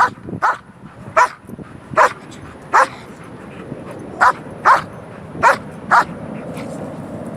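Black German Shepherd barking in excitement at a ball: about nine sharp barks, a half second to a second apart, stopping about six seconds in.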